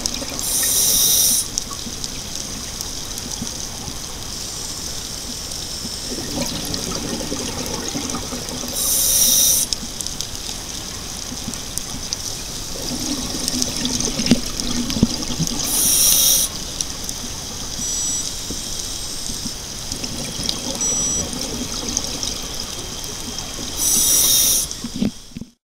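Scuba diver breathing through a regulator underwater: a short loud hiss about every seven to eight seconds, with a lower burble of bubbles between, over a steady background hiss. The sound cuts off abruptly at the very end.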